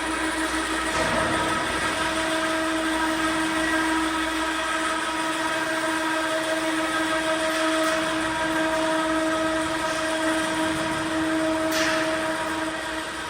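Tractor running steadily under load, with a constant whine over the engine noise; a sharp click near the end as the sound starts to fade.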